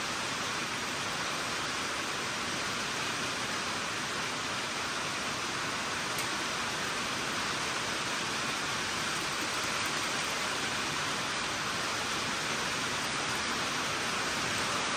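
Steady rain on a tin roof, heard from inside the building as an even hiss that does not let up.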